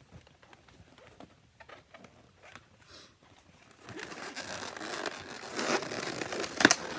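Inflated latex twisting balloons rubbing and squeaking against each other and against the hands as they are handled and twisted. Faint at first, it grows louder about four seconds in, with one sharper sound near the end.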